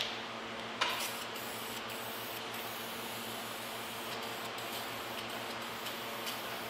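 Aerosol spray can hissing steadily as blue paint is sprayed onto the snowmobile's bare-metal tunnel, with a single short knock about a second in.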